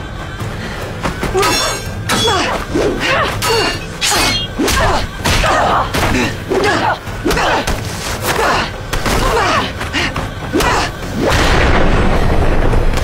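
Action-scene sound effects from a TV fantasy drama: a rapid run of hits, thuds and crashes over dramatic score music, building to a louder, sustained stretch near the end.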